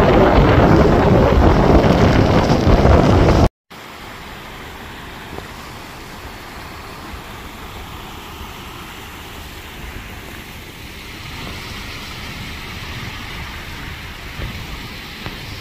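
Strong storm wind buffeting the microphone with a loud, even rumble. It cuts off abruptly about three and a half seconds in, and a much quieter steady rush of wind follows.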